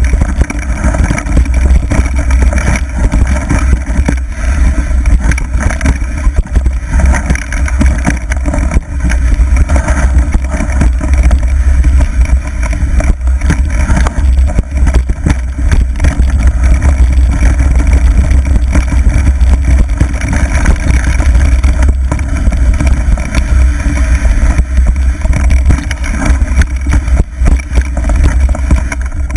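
Mountain bike descending a rough dirt trail at speed: loud, constant wind buffeting on the microphone, with the bike rattling and knocking over bumps throughout.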